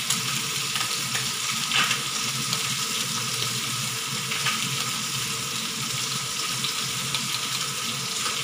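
Chicken soup boiling hard in a glass pot: a steady bubbling hiss, with a few light clicks as a mesh skimmer scoops scum off the surface.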